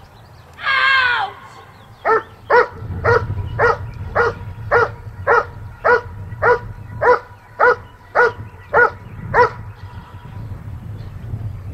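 Working dog barking steadily at the hiding blind in the hold-and-bark of the protection phase, short sharp barks just under two a second. A single longer cry falling in pitch comes just before the run of barks.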